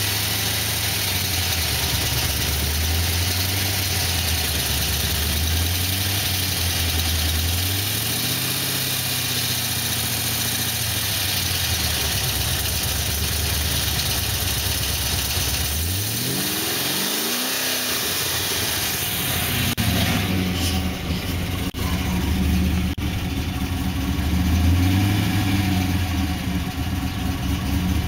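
Pontiac GTO's 6.0-litre LS2 V8 running at idle with a few gentle rises in speed, and one quick rev up and back down about sixteen seconds in. The owner suspects piston slap.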